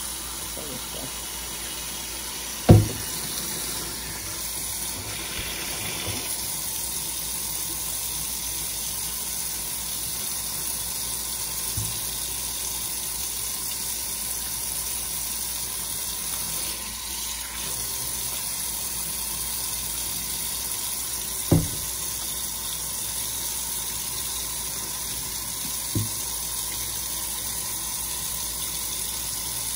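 Kitchen faucet running in a steady stream into a stainless steel sink. A sharp knock comes about three seconds in, and two more knocks come later.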